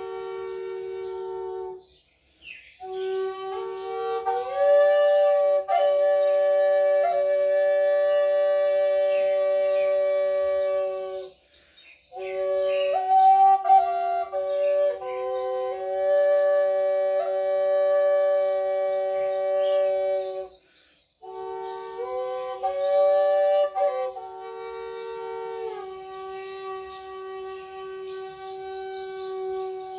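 Flute played in long breaths: a steady low drone note holds under a slow melody that steps up and down above it. Both break off together for a breath about every nine seconds.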